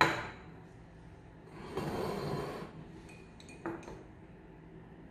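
Glassware clinking as a glass pipette with a rubber pipette bulb is worked in a glass beaker: a sharp clink at the start, a hiss of air lasting about a second as the bulb is squeezed, then a lighter clink with a brief ring shortly before the end.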